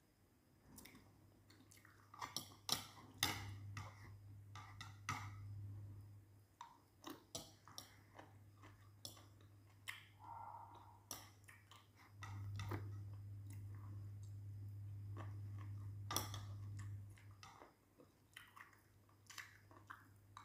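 A person chewing food with quiet mouth sounds, and scattered light clicks of a fork and knife against a glass bowl. A low steady hum comes in twice, for a few seconds each time.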